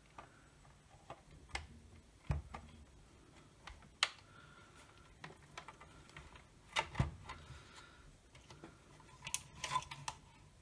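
Scattered clicks and light knocks of a hard plastic charger housing and its circuit boards being handled and laid open.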